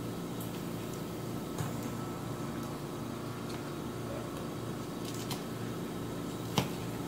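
A fork scrapes and clicks against a salad bowl as it spears iceberg lettuce. Three sharp clicks fall about a second and a half in, past five seconds, and loudest about six and a half seconds in. A steady low hum runs under them.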